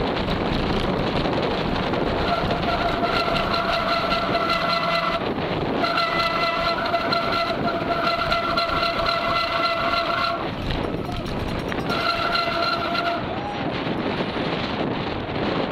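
Mountain bike disc brakes squealing in three stretches, a steady high-pitched tone with overtones that stops and starts as the brakes are applied and let off, over constant wind rush on the microphone.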